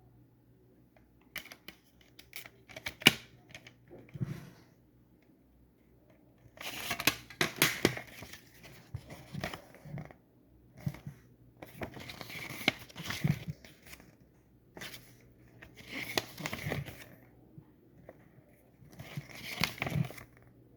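Plastic wrap and packaging on an album being torn open and crinkled by hand. It starts with a few sharp clicks and snaps, then comes in repeated bursts of crinkling and tearing a second or two long, a few seconds apart.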